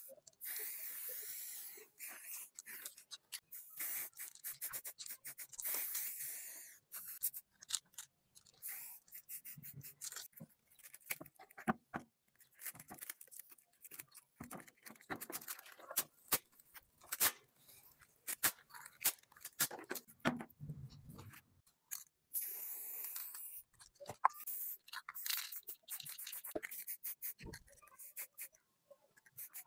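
Aerosol spray paint can hissing in short repeated bursts, then a stretch of small clicks, knocks and scrapes from parts being handled, and more spray bursts about two-thirds of the way in.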